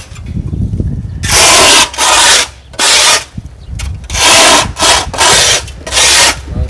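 Six loud rubbing strokes against wood, roughly one a second, each lasting about half a second.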